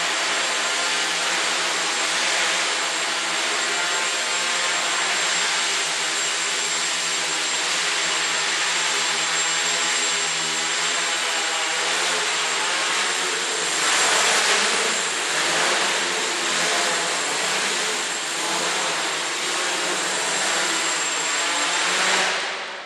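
Electric quadrotor's rotors buzzing steadily in flight, with a thin high whine above the hum. It grows louder and rougher about two-thirds of the way through, then spins down and dies away quickly at the very end as the craft comes down to the floor.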